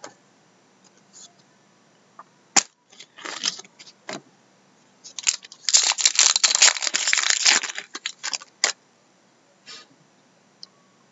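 A trading-card pack wrapper being torn open and crinkled for about two seconds, with scattered clicks and taps from cards being handled before it.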